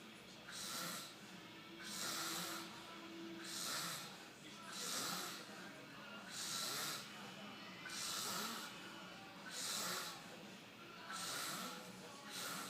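A man snoring in a steady rhythm, with a noisy rasping breath about every second and a half.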